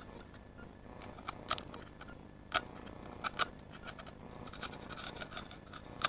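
Thin fruit-crate wood being handled and slid over a tabletop scattered with wood shavings: faint scraping with a few sharp clicks and taps.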